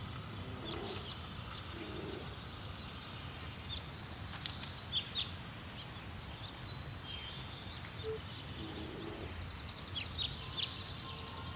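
Small birds chirping and calling, with short high chirps scattered throughout and a quick rapid trill about ten seconds in. A steady low outdoor background noise lies beneath them.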